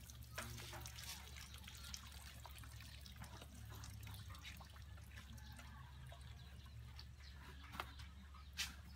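Water dripping and trickling off a freshly doused cow onto muddy ground, faint, with a couple of sharp knocks near the end.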